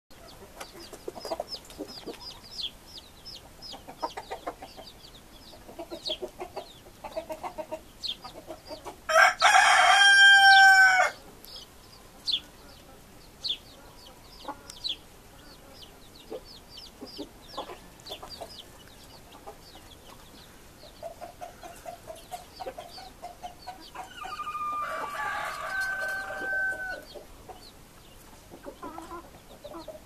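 A rooster crows loudly about nine seconds in and again, fainter, near the end, over scattered clucking and quick high chirps.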